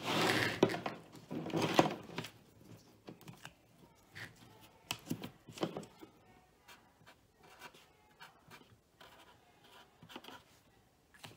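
Bundled automotive wiring-harness wires rustling as they are handled. Then scattered small taps and rubbing as blue masking tape is wrapped around a wire and a marker writes a label on it.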